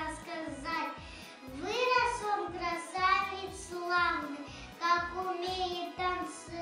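Children singing a song over a backing track with a steady beat.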